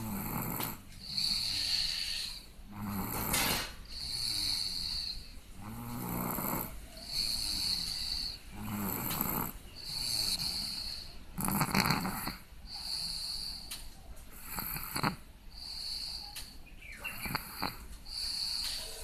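A person snoring in sleep, about one breath cycle every three seconds, each pairing a rough snore with a high whistling breath.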